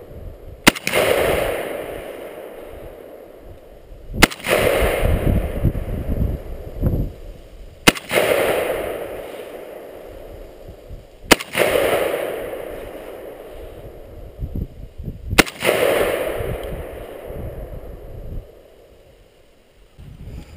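Romanian AK-47 rifle firing five single shots of 7.62×39 mm, one about every three and a half to four seconds, each echoing for a couple of seconds.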